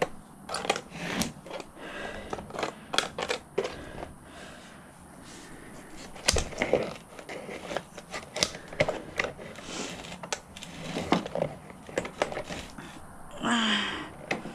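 Plastic-handled garden scissors clicking and snipping irregularly, with a few louder clacks.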